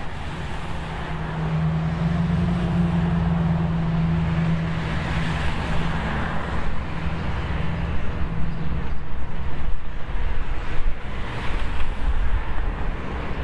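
Wind rumbling on the microphone over steady road noise, with a vehicle's engine hum that comes up about a second in and fades out after about nine seconds.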